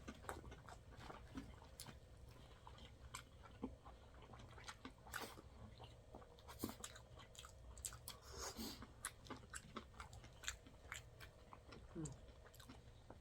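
Faint, close-up chewing: many small, irregular wet mouth clicks and smacks of people eating soft food.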